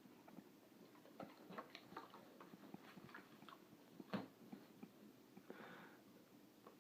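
Faint, irregular clicks and taps of a dog eating from a dinner table, with one sharper knock about four seconds in.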